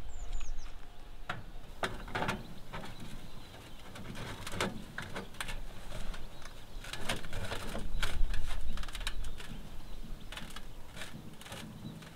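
Metal tent-stove chimney pipe being worked onto its elbow joint: irregular clinks, knocks and scraping of metal on metal as the section is pushed and twisted into place. A few short bird chirps come about half a second in.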